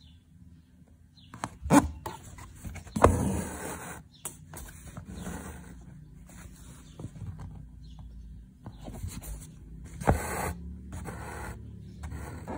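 Embroidery needle and crystal thread drawn through fabric stretched taut in a wooden hoop: scratchy swishes as the thread is pulled through, with sharp knocks about two, three and ten seconds in.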